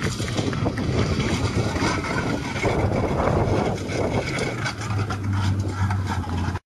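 Rally car's engine running at high revs as the car slides with its wheels spinning, under heavy wind noise on the microphone. The engine settles into a steady note near the end.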